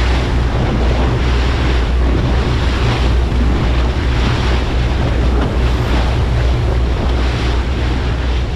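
Wind buffeting the microphone and water rushing past a small boat's hull, over the steady low drone of its engine at trolling speed.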